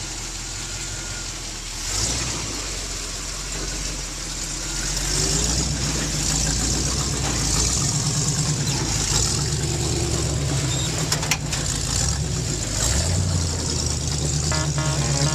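Rock crawler buggy's engine running at low revs as it crawls over rock, the engine note swelling a few seconds in and holding steady. A few sharp clicks come in the second half.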